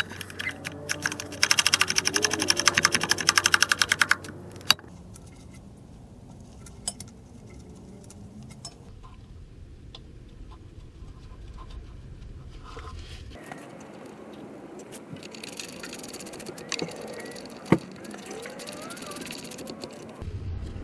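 Hand ratchet wrench clicking in rapid runs, loud in the first few seconds and fainter near the end, with a few single sharp metal clicks in between: the nuts holding the differential to the axle housing being run down over a new gasket before torquing.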